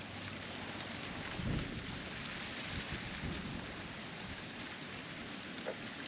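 Wind blowing steadily, a hiss like rain through the foliage, with gusts buffeting the microphone in low rumbles about a second and a half in and again around three seconds. A short sharp sound comes near the end.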